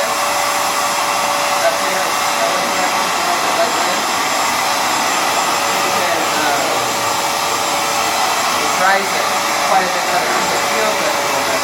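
Hoover FloorMate Edge hard floor cleaner running steadily on a wood floor: its suction motor gives a steady rushing hum with a constant whine.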